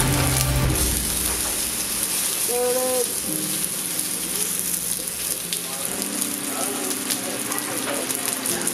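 Wagyu steak searing in a hot frying pan: a steady sizzle of fat and juices.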